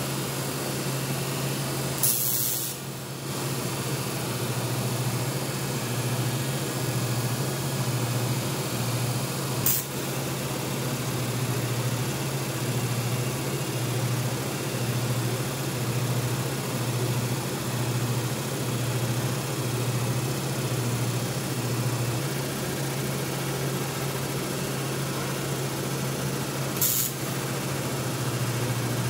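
TIG welding arc buzzing steadily, with short sharp crackles about two seconds in, near ten seconds and near the end.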